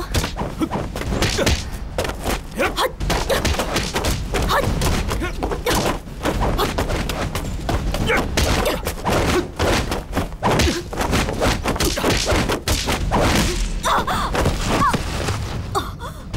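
Fight sound effects from a staged martial-arts brawl: a rapid, unbroken run of punches, kicks and body thuds, with a few short cries of effort or pain.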